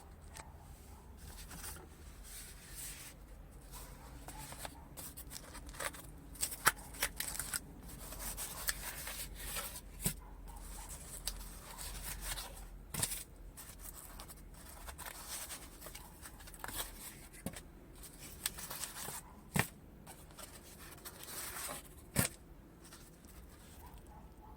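Rustling and scraping handling noises, broken by about five sharp clicks.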